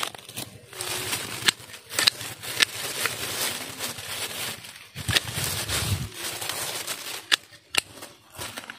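Footsteps through dry leaf litter and undergrowth, with dry leaves and twigs crackling and snapping in many sharp clicks.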